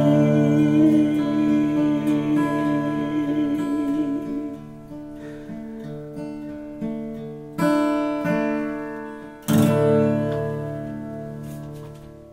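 Acoustic guitar with a man singing one long wavering held note over it for the first four seconds or so. Then two or three single strummed chords, each left to ring out and fade as the song ends.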